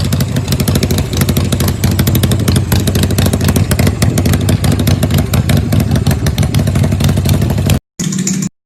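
Harley-Davidson V-twin motorcycle engine running steadily and loud, with rapid, even exhaust pulses. It cuts off suddenly near the end, and a brief half-second snatch of a different sound follows before silence.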